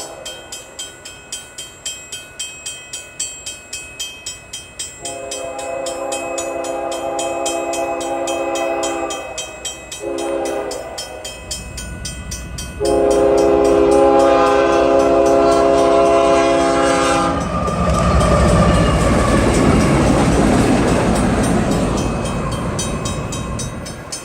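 Union Pacific locomotive 5276's horn sounding the grade-crossing signal: a long blast, a short one, then a louder long blast. Before the horn, a crossing bell rings about twice a second. The train's heavy rumble builds as the locomotive reaches the crossing and passes, and carries on loud to the end.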